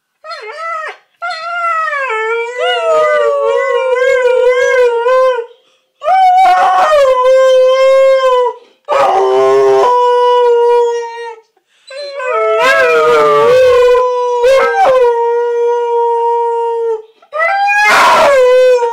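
Young Siberian husky howling: a series of long howls held near one pitch, some wavering up and down, with short gaps between them. It is howling in answer to a scrap collector's shouted calls.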